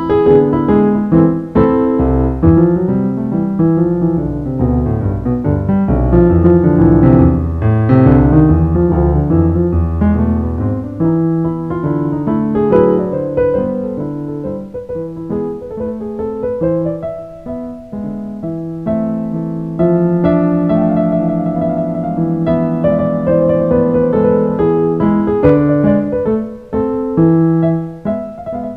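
Piano music. Deep bass notes are prominent for the first several seconds, then the playing moves into a lighter, higher passage.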